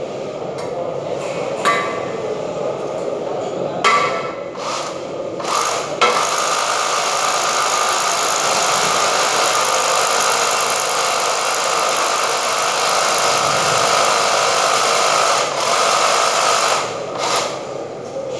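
Cordless drill boring into a wall: a few short spurts, then one continuous run of about ten seconds that stops near the end.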